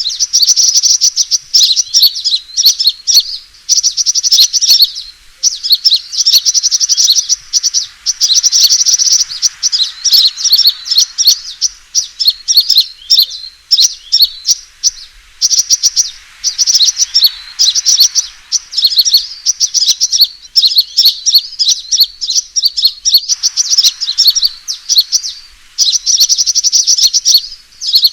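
Sunbird ('kolibri') fighting song played as a trapping lure: loud, rapid, high-pitched chattering trills in runs of a second or two, broken by short gaps.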